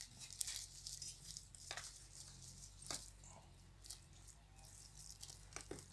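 Faint, scattered crinkles of a thin plastic bag and soft squishing of hands on raw beef steaks as seasoning is shaken out and pressed into the meat, over a low steady hum.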